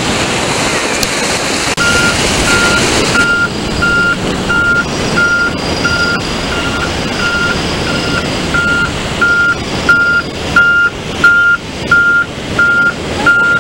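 Surf washing at first, then an articulated dump truck reversing on the sand, its reversing alarm beeping evenly about one and a half times a second and growing louder toward the end.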